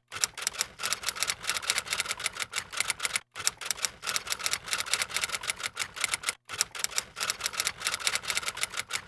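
Typewriter key-clicking sound effect, a rapid, even run of clicks that accompanies on-screen text being typed out. The clicking breaks off briefly twice, at about three seconds and at about six and a half seconds.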